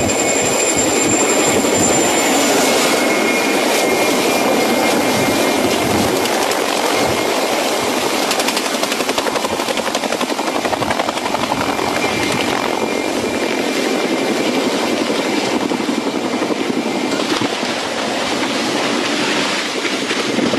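Helicopter flying low and close, its rotor and engine running loud and steady as a dense, rapid chop. A thin high whine sits over it and fades out after about two seconds.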